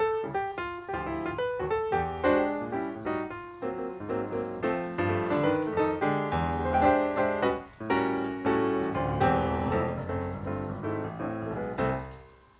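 Background piano music, a lively run of many notes, fading away near the end.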